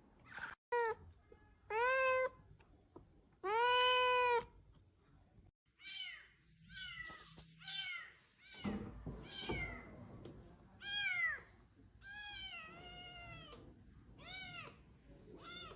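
Cat meowing over and over: a few short meows, a long drawn-out meow about four seconds in, then a quick run of higher-pitched, falling meows.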